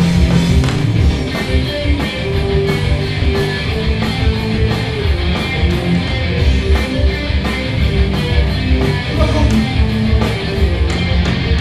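Live rock band playing loud, with electric guitars over bass and drums and a cymbal struck about twice a second.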